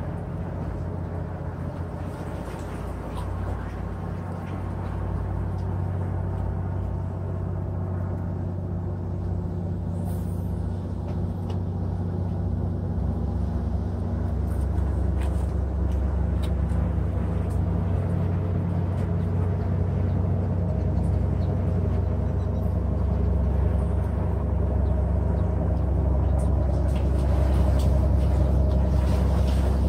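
Low, steady engine rumble with a hum of several tones, slowly growing louder over the half-minute.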